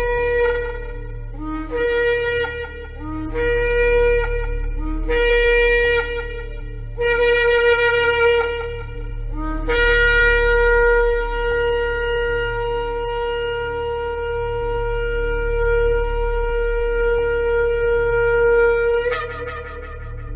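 Shofar (ram's horn) blowing four short blasts, then one long held blast of about nine seconds. Each blast opens with a brief low note that jumps up to the main tone, and the long one ends in a quick rising flourish. A low steady hum sits underneath.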